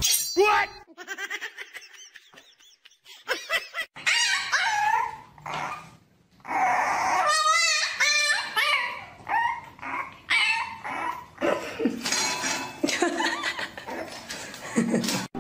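A dog barking and whining in a series of short calls with pauses between them, one call wavering in pitch.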